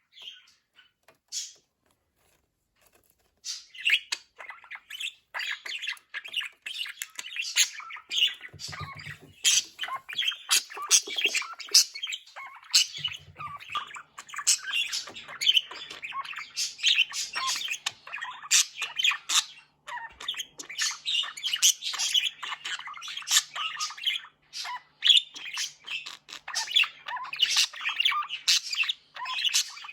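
Pet budgerigars chattering: a fast, dense run of chirps, tweets and squawks that starts about three and a half seconds in after a near-quiet pause.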